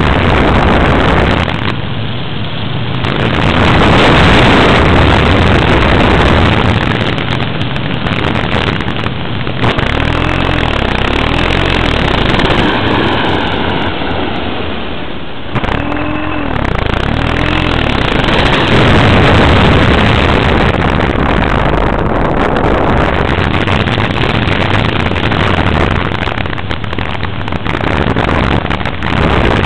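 Loud, steady rush of wind and motor noise heard from on board a radio-controlled model airplane in flight. About halfway through there are a few short rising-and-falling tones.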